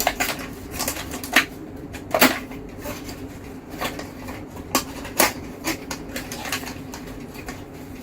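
Hands unpacking a CPU retail box and lifting out the stock Intel cooler: scattered clicks, taps and rustles of cardboard and plastic packaging, over a steady low hum.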